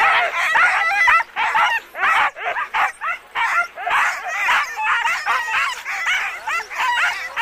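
Sled dogs barking and yipping, many voices overlapping in a rapid, unbroken chorus of short high yelps.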